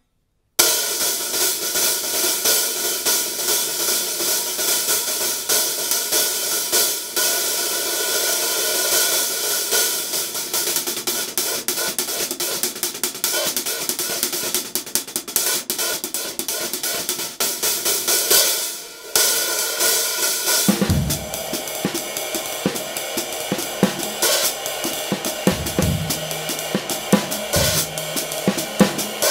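Handmade 13-inch paper-thin B8 bronze hi-hat top cymbal (604 g) played with sticks in a fast, continuous run of strokes, with a bright, shimmering wash. From about 21 seconds in, low kick-drum and snare hits join it in a drum-kit groove.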